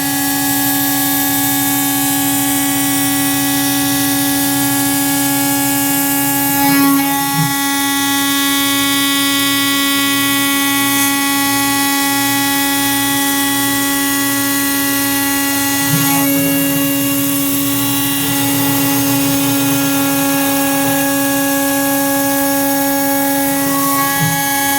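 Machine tool cutting aluminium: a steady machining whine made of several constant tones over a hiss, with brief changes in the cut about seven, sixteen and twenty-four seconds in.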